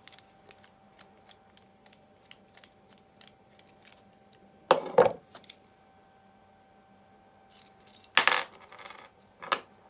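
Loose metal parts of a hand plane clinking and knocking as it is taken apart and refitted. Light ticks are followed by a pair of loud clunks about halfway through and two more near the end.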